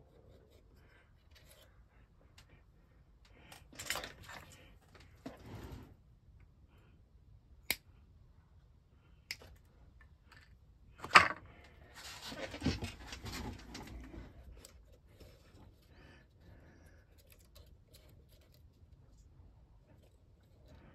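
Small hand tools and wooden model parts being handled on a workbench: scattered light clicks and rustling, with a sharp knock about eleven seconds in, followed by a few seconds of rustling and scraping.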